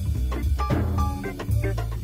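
Intro music with a drum kit and bass playing a steady beat.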